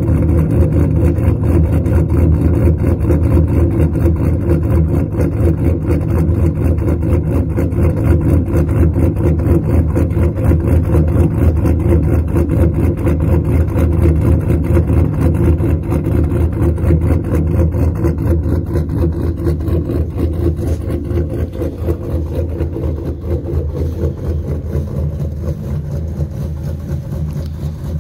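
2015 Ram 1500's 5.7 L Hemi V8, with an aftermarket cam, long-tube headers without catalytic converters and a Flowmaster stainless muffler, idling steadily soon after a cold start. The sound grows gradually quieter over the last third.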